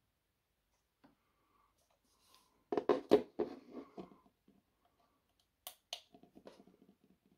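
Plastic LED camping lantern set down on a wooden floor with a few knocks and handling clatter, then two sharp clicks from its push button as it is switched on, followed by light rattling.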